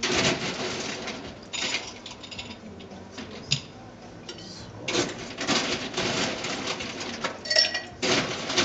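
Ice cubes dropped into glassware, clattering and clinking in several irregular bursts, with a short bright clink of glass ringing near the end.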